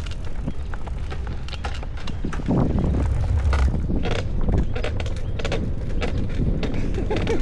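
Wind buffeting the microphone while riding a bicycle, a heavy uneven rumble, with frequent small clicks and rattles from the ride.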